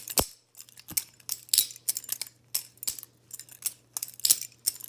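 Bear & Son Bear Ops butterfly knife (balisong) being flipped open and closed through the horizontal trick, its metal handles and blade clacking in quick, irregular clicks, several a second.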